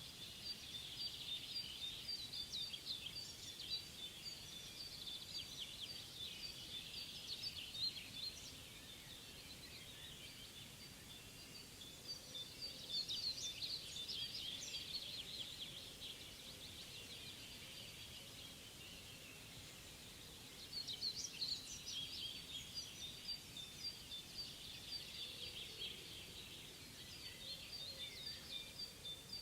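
Songbirds singing in three bouts of rapid, high twittering trills, over a faint steady background hiss.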